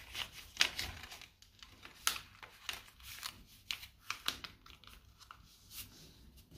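A sheet of A4 paper being folded by hand: irregular crinkles and rustles, several a second, as fingers fold a triangular flap along an edge and press the crease flat.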